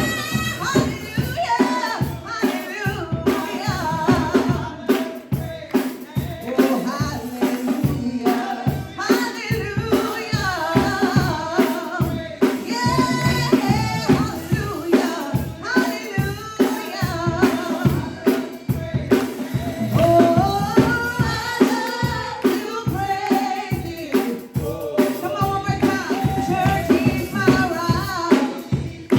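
Gospel praise music: singing over a drum kit with a steady beat.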